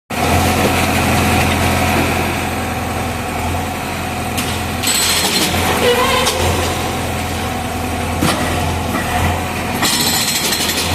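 Engine of a heavy demolition machine running steadily. Two stretches of harsher, noisier sound lie over it, about five seconds in and again near the end.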